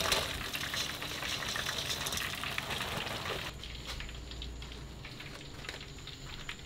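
Hot oil sizzling and crackling in a deep fryer as battered alligator meat fries, dropping to a quieter sizzle about halfway through.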